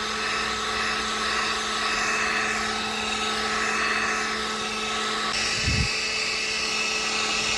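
Handheld hot-air blower running steadily with a fixed motor hum, drying the freshly applied leather repair compound so that it shrinks and sets. A brief low bump about six seconds in.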